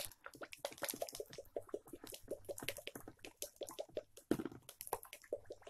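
Bottle of e-liquid being shaken hard by hand, the liquid sloshing and knocking inside in a quick, steady rhythm.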